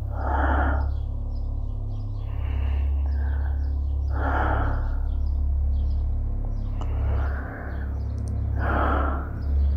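Slow, heavy breathing: a loud breath about every four seconds with softer ones between, over a steady low hum.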